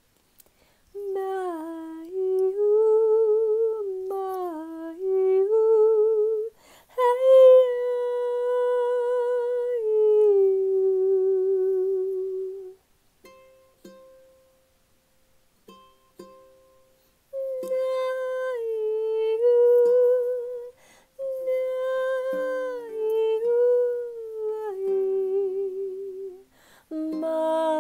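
A woman's wordless vocal toning: long held notes with a wavering vibrato, sliding up and down between pitches, with pauses between phrases and a near-silent stretch about halfway through. A ukulele is plucked softly under the voice.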